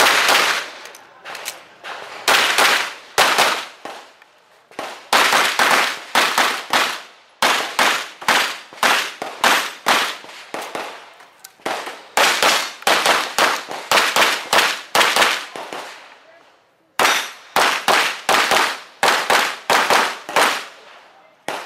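Handgun shots fired in rapid strings, often in close pairs, broken by a few short pauses of about a second: a competitor shooting a timed practical-shooting stage. Each shot ends in a short ringing echo.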